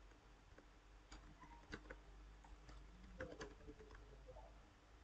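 Faint, scattered clicks of computer keyboard keys typed slowly, over near silence.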